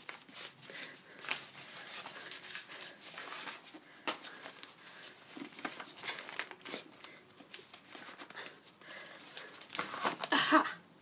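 Parcel packaging being torn open and handled: paper and cardboard crinkling and tearing in irregular bursts, loudest just before the end.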